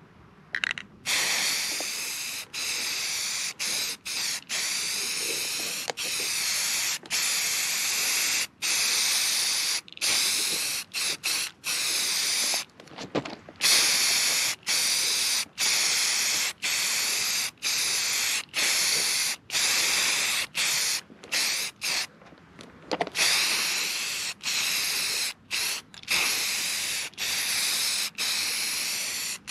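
Aerosol spray-paint can spraying in a long run of hissing bursts, each a second or two long, broken by short pauses as the nozzle is let go.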